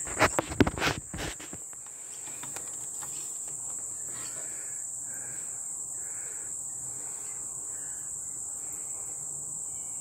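A few quick flaps and knocks in the first second or so as an Australian magpie lands right beside the microphone, over a steady, high-pitched drone of insects.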